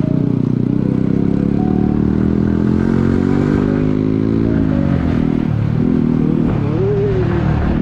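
Motorcycle engine running under way. Its pitch climbs slowly, drops about five seconds in, then picks up again.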